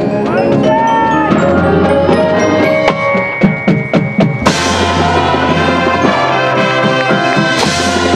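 High school marching band and percussion playing: held notes, then a run of heavy drum hits from about three seconds in, breaking into a loud full-band entrance with cymbals about four and a half seconds in, and another loud accent near the end.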